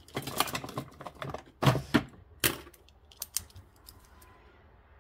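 A quick run of clicks, taps and light knocks as a pen and a paper ledger are handled on a desk, with the two loudest knocks about halfway through. The clicking stops after about three seconds.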